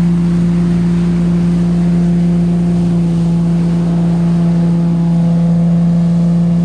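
Hasatsan H 900 Typhoon tractor-mounted blower and its tractor running steadily at working speed, blowing fallen leaves: a loud, even hum with a few fainter higher tones over a rush of air.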